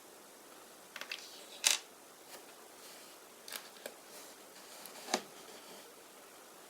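Hands handling a toy surprise egg and its small plastic contents: a run of irregular clicks, taps and crinkles, the sharpest about a second and a half in and again near five seconds.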